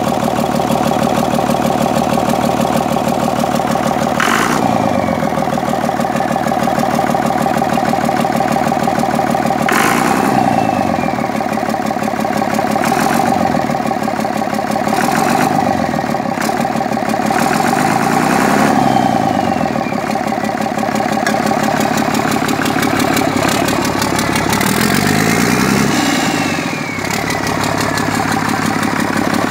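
Cummins ISB 260 hp turbodiesel engine running on a stand, idling steadily and revved up and back down about half a dozen times, its pitch rising and falling with each rev. There are two sharp clicks, about four and ten seconds in.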